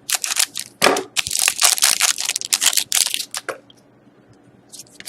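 Trading cards and their plastic packaging handled close to the microphone: dense crinkling and rustling for about three and a half seconds, then a few brief rustles near the end.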